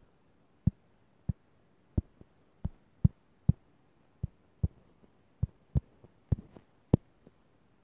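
Fingertip taps on a phone's touchscreen, picked up by the phone's own microphone: about fifteen short, low knocks at uneven spacing, a few tenths of a second to under a second apart.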